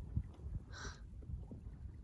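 Faint low rumble of wind on the microphone and water moving at the shore, with one brief soft hiss a little under a second in.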